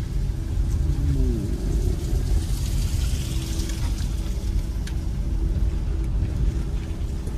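Steady low rumble of the Ford Bronco on the move, engine and road noise together, with a short falling tone about a second in.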